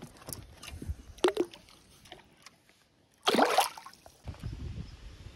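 A largemouth bass let go into lake water with one short splash about three seconds in, after a few light knocks and rustles of the fish being handled.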